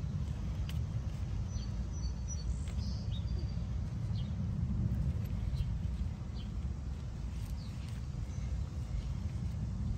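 Steady low outdoor rumble, with faint scattered bird chirps and a few faint clicks.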